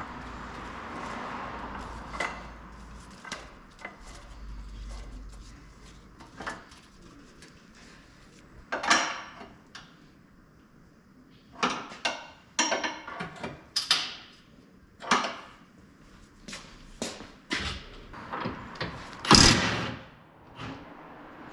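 A series of separate knocks and clunks of tools and parts being handled, bunched in the middle, with the loudest and longest clunk near the end.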